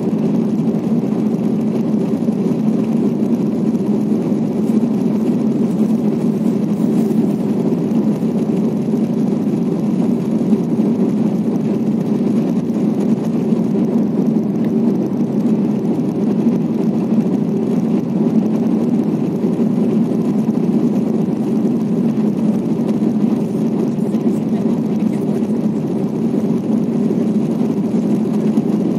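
Steady cabin noise inside an Airbus A350 jet airliner on its descent: an even, low drone of the engines and the airflow over the fuselage, unchanging throughout.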